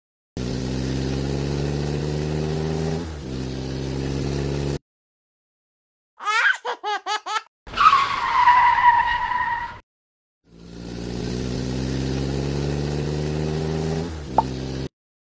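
Engine sound effect revving with a slowly rising pitch, cut in and out abruptly twice. Between the two runs come a quick string of high chirps and a screeching tyre squeal that falls in pitch over about two seconds.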